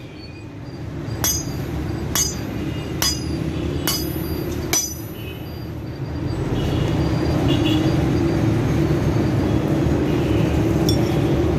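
Five sharp metallic clinks about a second apart: an iron rod knocked against a steel anvil block. A steady low background rumble follows and grows louder from about six seconds in.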